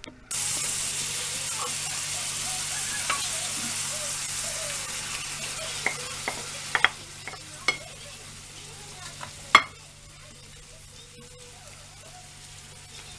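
Diced beef, onions and green peppers sizzling in a frying pan, stirred with a wooden spatula as chopped tomatoes go in. The sizzling starts suddenly and drops down about ten seconds in, with several sharp clacks of the spatula against the pan, the loudest just before it drops.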